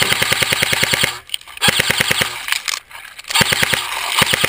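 Airsoft rifle firing on full auto in several quick bursts, about thirteen shots a second, with short pauses between bursts.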